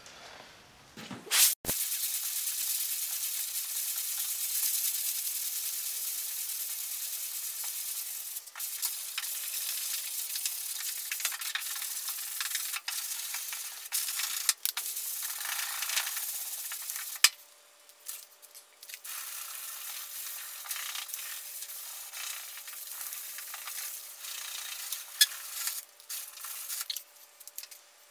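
Hand sanding of cured metal glaze finishing putty on a steel car quarter panel with a sanding block and 150-grit sandpaper: a steady, hissy scratching in strokes, with brief pauses. A single sharp knock comes about a second and a half in.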